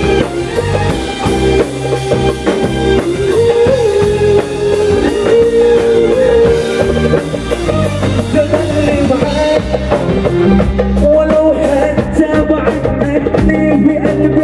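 Live band music: drum kit and bass keeping a steady beat under a bending lead melody, with singing, guitar and a flute.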